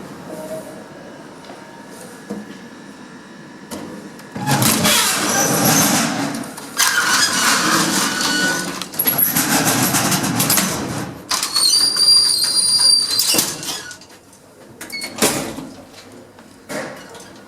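Old gated express passenger lift: a low steady hum, then from about four seconds in several loud stretches of its doors and gates sliding and rattling, one with high ringing tones, followed by a few sharp knocks.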